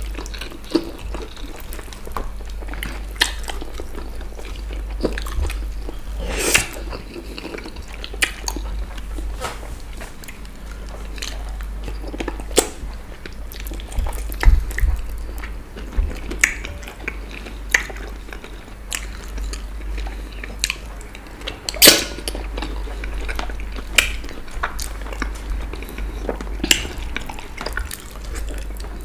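Close-up eating sounds of fufu with ogbono and okro soup eaten by hand: chewing and wet mouth noises, with many short sharp smacks and clicks scattered irregularly throughout.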